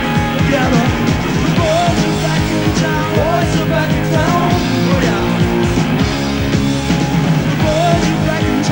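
Hard rock band playing live on electric guitars, bass guitar and drums, loud, with a lead electric guitar playing bent notes over the band.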